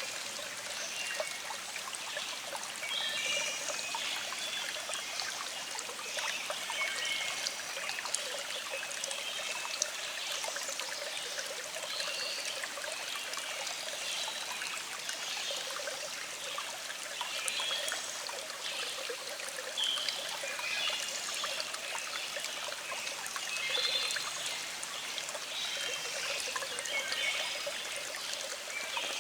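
Small stream trickling and babbling steadily over rocks, with birds chirping intermittently in the background.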